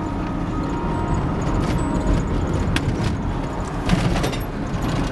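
Steady low engine and tyre rumble heard inside a moving car's cabin on a winding road. A few light clicks and rattles come a little before the three-second mark and again about four seconds in.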